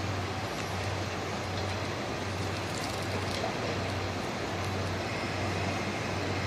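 Steady low drone and rumble of a diesel railcar approaching along the line toward the platform.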